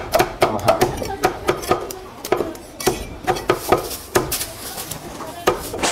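Steel meat cleaver chopping a raw chicken into pieces on a thick round wooden chopping block: a quick, uneven run of sharp chops, about two to three a second.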